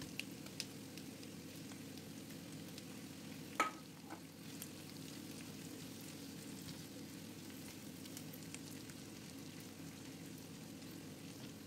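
Faint sizzle of hot oil in a wok as fried eggplant pieces are stirred in with sautéed onion, garlic and ginger, a silicone spatula moving them around the pan. A few light clicks near the start and one sharper knock about three and a half seconds in.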